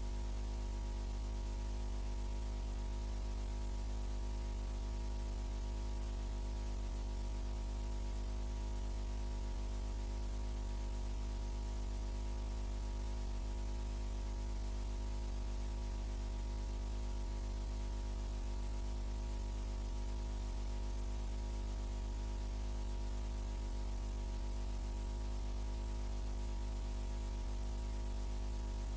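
Steady mains hum with a stack of overtones under a constant hiss, unchanging throughout: the noise of a film transfer with no recorded sound of its own.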